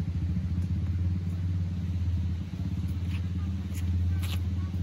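An engine running steadily at idle, a low even hum with a fast flutter, with a few faint clicks over it.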